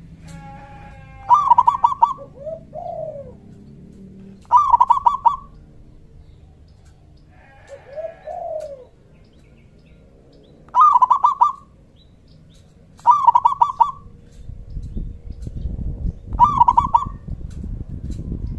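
Zebra dove (local perkutut) cooing: five short phrases of rapid staccato coos, each a fraction of a second long, spaced a few seconds apart. Two softer, lower arching calls come between them, and a low rumble sets in near the end.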